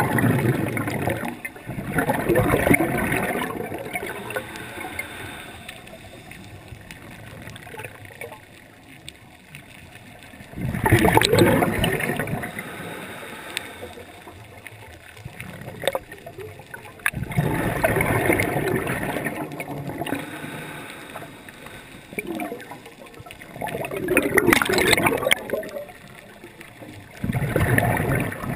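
A scuba diver breathing through a regulator underwater. Every six seconds or so an exhalation sends out a burst of gurgling exhaust bubbles, with quieter spells in between.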